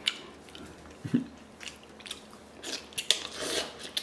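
Close-up eating sounds: wet mouth noises and biting into braised pork feet, with a few sharp clicks and a short hissy, slurping stretch near the end.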